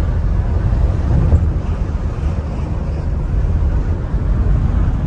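Steady low rumble of a vehicle driving, its engine and road noise heard from inside the cabin.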